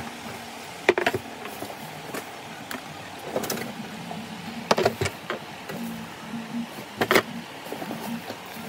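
Plastic-wrapped children's tricycle parts being handled and pulled out of a cardboard box: sharp knocks of plastic and metal parts about a second in, near the middle and about seven seconds in, with smaller clicks and rustling between them.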